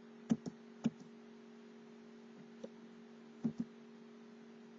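A few separate computer keyboard keystrokes: three in the first second, a faint one near the middle and a quick pair a little later, over a steady low electrical hum.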